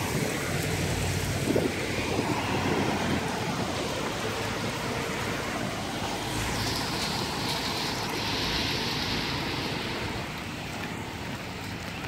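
Steady rush of wind and rain, with wind buffeting the microphone. A higher hiss swells for a few seconds just past the middle.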